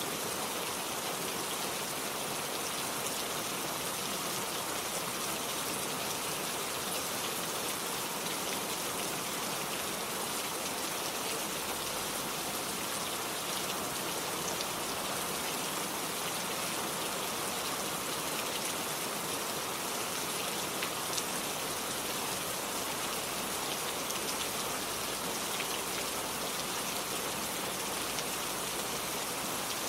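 Steady rain falling, an even hiss of water with scattered sharp ticks of individual drops.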